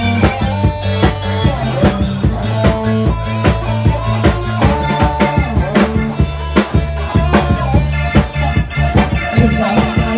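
Live band music: electronic keyboard holding chords over a drum kit keeping a steady beat, with electric guitar.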